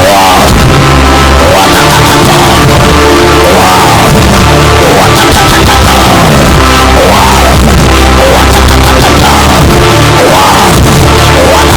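Loud rock-style band music with steady bass notes, and voices singing or shouting over it.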